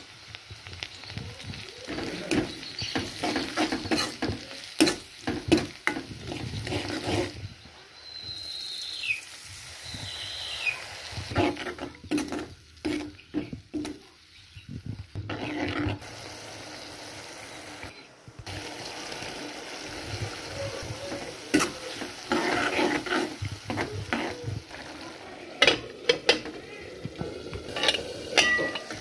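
Onions and ground spices frying in hot oil in an aluminium wok, sizzling, while a steel spatula stirs and scrapes against the pan with repeated clinks and knocks. Two short high falling chirps come about a third of the way in.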